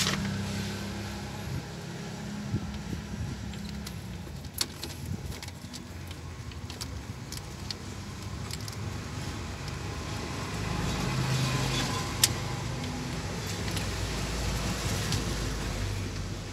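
Scattered small clicks and rattles of a speedometer cable and its fittings being handled in a car's engine bay, over a low steady vehicle hum that swells for a few seconds about two-thirds of the way in.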